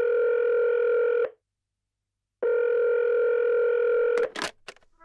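A steady electronic tone, much like a telephone dial tone, held about two seconds, breaking off for about a second, then sounding again for about two seconds. A brief crackle of short clicks follows near the end.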